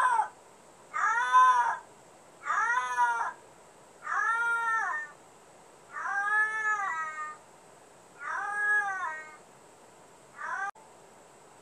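A cat meowing over and over, with about seven long, drawn-out calls that rise and fall in pitch, one every second and a half or so. The last call is cut off short near the end.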